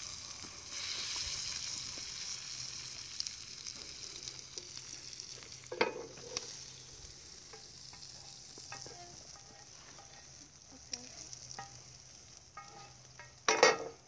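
Bacon and onions sizzling in a hot cast-iron pan as the grease is drained off, the sizzle slowly fading, with scattered clicks of metal utensils on cast iron and a louder knock near the end.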